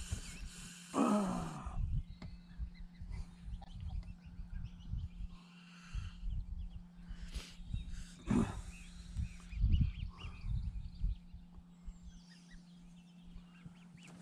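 Geese calling: a falling, drawn-out call about a second in and a few shorter calls later, over a steady low hum and low rumbling knocks.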